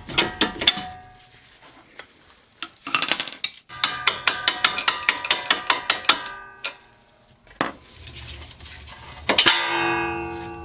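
Brass hammer tapping on the 2004 Honda Pilot's lower strut-to-knuckle bolts to drive them out: a few taps at the start, then a quick run of metallic taps at about five a second, each one ringing, and a single louder ringing clang near the end.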